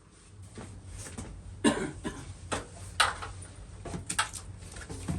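A series of sharp knocks and clinks from hard objects being handled, the two loudest about a second and a half apart, over a low steady hum.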